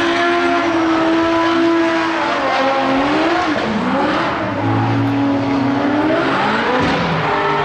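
Drift cars' engines revving up and down, several at once, their notes rising and falling repeatedly, over a steady hiss of spinning, sliding tyres.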